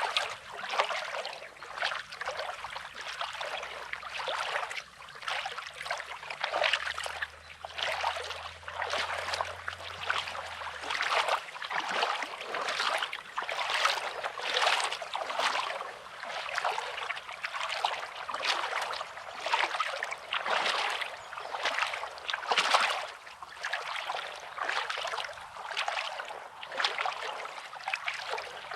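Small sea waves lapping and washing over a rocky, pebbly shore in quick repeated swells.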